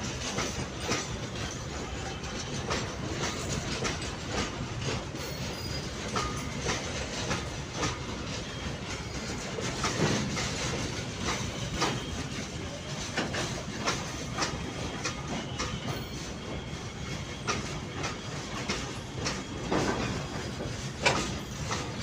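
Container freight train's wagons rolling past close by: a steady rumble with the wheels clacking irregularly over the rails.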